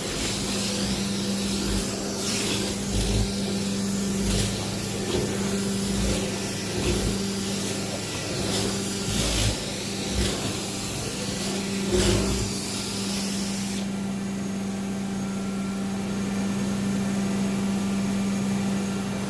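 Steady hum of a running machine, with irregular swishing, hissing strokes over it that stop about two-thirds of the way through.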